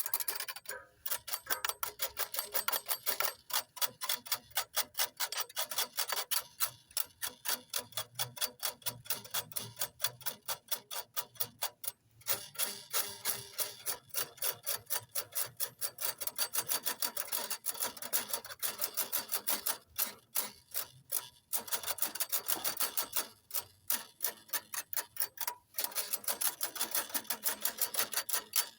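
Cowbell clanking rapidly, a steady train of sharp strikes several times a second, broken by a few brief pauses.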